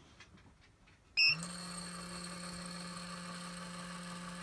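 An electronic powder dispenser beeps once, briefly, about a second in, then its motor starts a steady low hum as it begins trickling powder.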